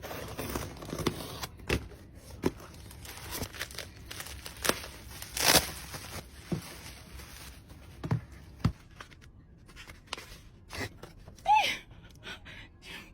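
Packaging being opened by hand: plastic wrap and paper tearing and crinkling, with scattered sharp clicks and taps from the box and its contents.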